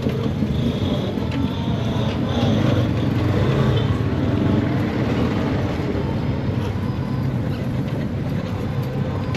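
Motorised tricycle's motorcycle engine running steadily, with road and wind noise, heard from inside its moving sidecar.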